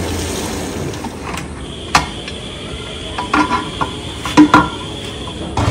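Metal pots and utensils knocking and clinking several times while cooking, with short ringing after the louder hits. A running tap stops about a second in, and a faint steady high tone sounds underneath.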